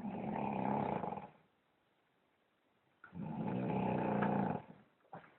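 A man snoring heavily in his sleep: two long snores, each about a second and a half, with a pause of about a second and a half between them.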